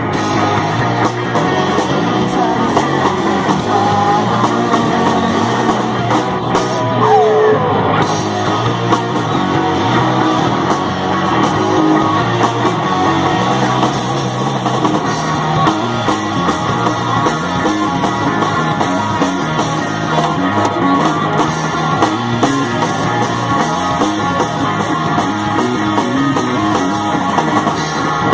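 A live rock band playing loud and continuously, with guitar and a drum kit.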